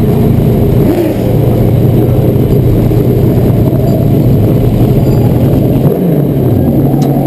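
Race car engine running at low speed, a steady low note with two brief changes in pitch, heard from a camera on the car's roof.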